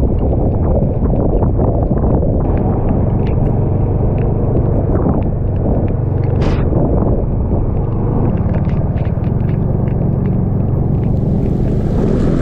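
Motorcycle engine running steadily while riding, under a heavy low rumble of wind and road noise, with many scattered sharp ticks and a brief hiss about six seconds in.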